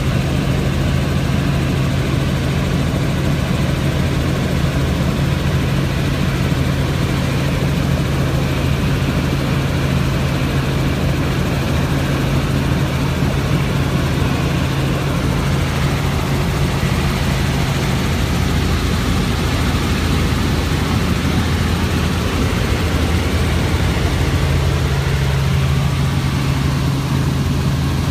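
Helicopter in flight heard from inside the cabin: a steady drone of rotor and engine with a strong low hum.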